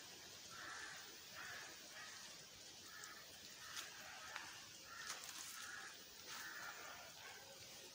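Faint outdoor background with an animal calling over and over, short calls about once a second, and a few light clicks near the middle.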